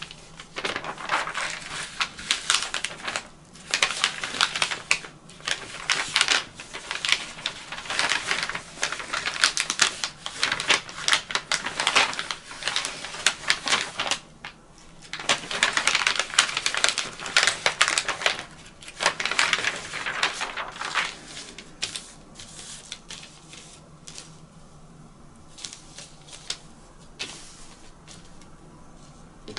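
Tailor's chalk scratching and tapping quickly on fabric over a hard tabletop as dart points are marked, in clusters of rapid short strokes with a short break about halfway; the strokes grow sparser and quieter in the last third, with light handling of the paper pattern.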